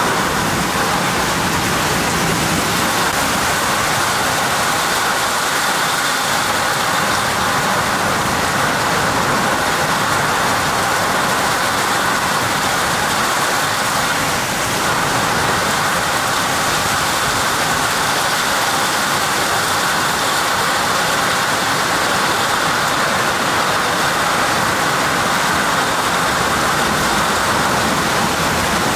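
Heavy thunderstorm downpour pouring onto a swimming pond and garden: a loud, steady hiss of rain.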